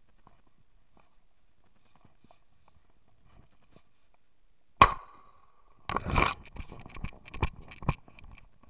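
A single shotgun shot about five seconds in, sharp and loud with a brief ring after it, followed by a burst of rustling and several knocks.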